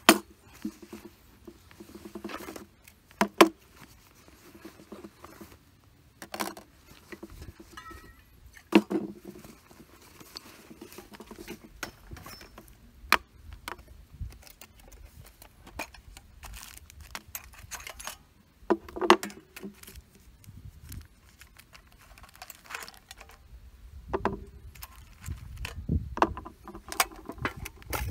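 Small metal tins, a bottle, stones and a steel striker being taken out of a canvas pouch and set down on a wooden table: scattered sharp clinks and knocks with rustling of fabric and handling between them.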